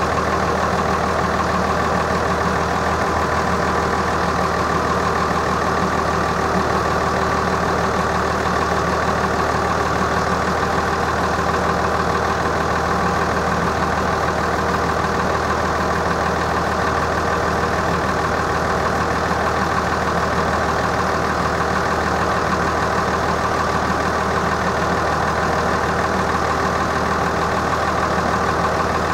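Belgian railway level crossing warning bell ringing steadily and without a break, its electronic tone signalling that a train is about to pass.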